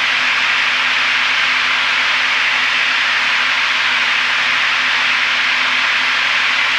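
Steady cabin noise of a Piper PA-32R Saratoga single-engine plane in flight: an even rushing of engine and airflow with a faint low drone underneath.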